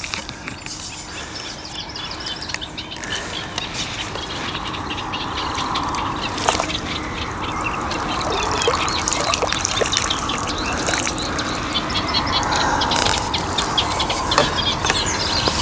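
Birds calling, a dense rapid chattering with duck-like calls, growing steadily louder.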